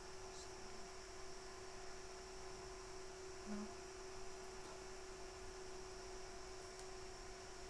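Steady electrical hum over a faint hiss, with a brief soft blip about three and a half seconds in.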